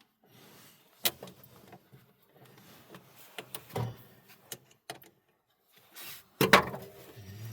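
Scattered metallic clicks and knocks of battery cable clamps being handled and fitted onto a battery terminal, with the loudest clatter near the end.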